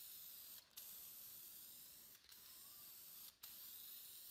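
Aerosol can spraying lacquer: a faint, steady hiss, broken by a few very brief breaks as the nozzle is let off between passes.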